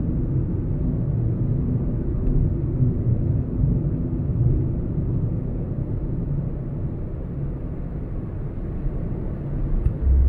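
Car driving at speed on a highway: a steady low rumble of road and engine noise, with one stronger low thump near the end.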